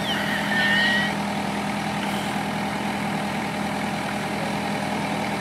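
Forklift engine idling steadily, with a faint short whine about a second in.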